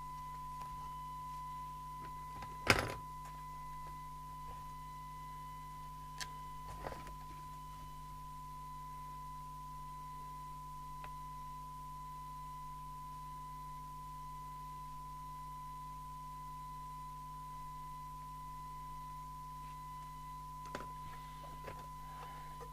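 A CB radio's speaker with the squelch open, sounding a steady single-pitched test tone with faint overtones over a low hum: the demodulated tone of a signal-generator test signal used for a SINAD sensitivity check. One sharp knock about three seconds in, with a few lighter clicks later.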